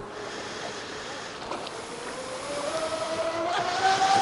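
Radio-controlled catamaran speedboat running on the water, its motor whine climbing steadily in pitch and getting louder as it comes closer, over a hiss of wind and lapping water.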